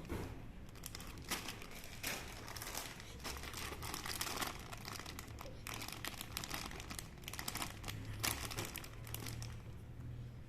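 Packaging crinkling and rustling as it is handled, in irregular bursts of crackle, while RC crawler kit parts are unpacked.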